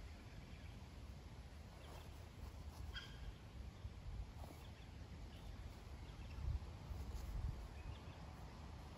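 A few faint, short bird calls over a low, uneven rumble of wind on the microphone.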